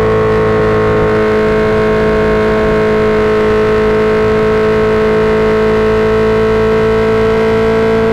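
Suzuki GSX-R1000 inline-four running through an M4 GP Series slip-on exhaust, held at steady high revs with its pitch creeping slightly upward, as when riding in one gear.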